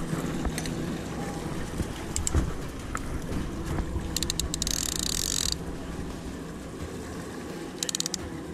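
Boat engine running steadily under wind and water noise. A knock comes about two seconds in, a burst of rapid clicking with a hiss about four seconds in, and a few more clicks near the end.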